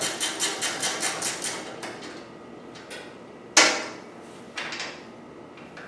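Hand ratchet wrench clicking rapidly and evenly, about six or seven clicks a second, as a bolt on the chipper shredder's cover is turned. The clicking stops a little under two seconds in. About two seconds later comes one sharp metallic clank, the loudest sound here, and a lighter knock a second after it.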